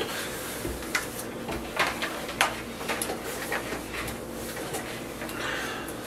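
Light clicks and knocks of items being handled in a countertop dishwasher's rack and door, scattered a second or so apart, with a short rustle near the end.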